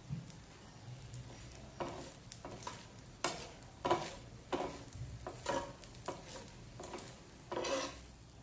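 Plastic spatula scraping around the edge and under a moong dal chilla on a non-stick pan to loosen the cooked, crisp pancake: about eight short scrapes starting about two seconds in, the last one longer, over a faint sizzle of oil.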